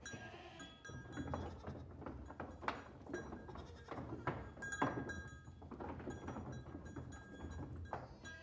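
Bleating animals calling a few times among many sharp taps and clicks.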